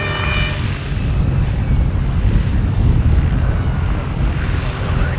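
Light aircraft's propeller engine running as the plane taxies on grass, half buried under heavy wind rumble on the microphone.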